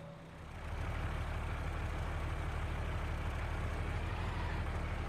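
Cartoon sound effect of a big truck's engine running steadily as it drives along. It dips briefly at the start and swells back up about half a second in.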